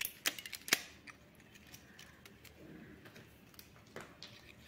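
Handling noise from a small LCD display circuit board and its bundle of wires turned over in the hand: a few light clicks and taps in the first second, then faint scattered ticks, with one more clear tick about four seconds in.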